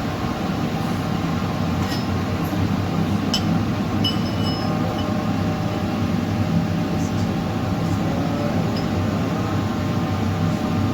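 Steady machine hum with several even tones and a few faint clicks.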